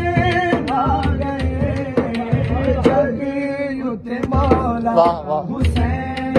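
A man singing a devotional song (manqabat) in praise of Imam Hussain, accompanied by steady rhythmic strokes on a daf frame drum.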